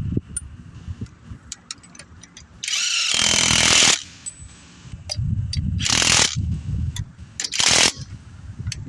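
Power tool run in three short bursts, the first and longest about a second and a half, with light clicks and knocks between them.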